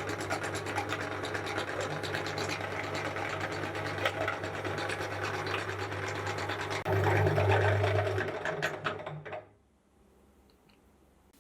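Meat grinder running and crunching through a butterscotch ice cream cone: a steady hum under dense crackling. It grows louder about two-thirds of the way in, then cuts off near the end.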